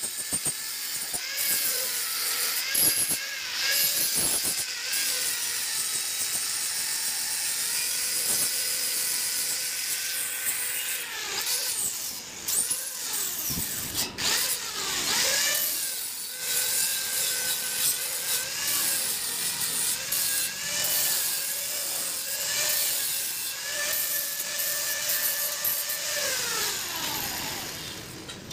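Handheld angle grinder with a flap disc grinding the joints of a stainless steel tube frame, its whine rising and sagging as it is pressed on and eased off. Near the end the pitch falls as the grinder spins down.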